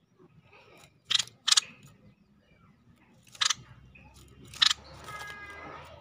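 Stripe-throated bulbul in a cage giving four short, harsh calls: two in quick succession about a second in, then two more a second apart. A fainter call trails off near the end.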